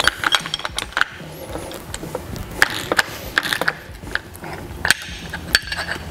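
Ratcheting wrench clicking irregularly, with light metal clinks, as the clamp-collar bolts on a steel tie-rod adjuster are snugged up lightly.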